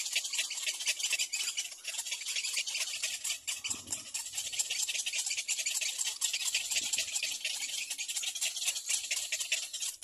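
Continuous high-pitched animal chorus: a dense, rapid chirring rattle that keeps going without a break.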